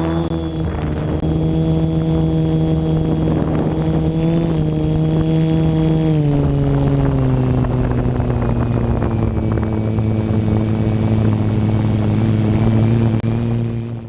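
DJI F450 quadcopter's electric motors and propellers running with a steady droning whine, heard close up from the drone's own camera. The pitch dips briefly about four seconds in and drops a step at about six seconds.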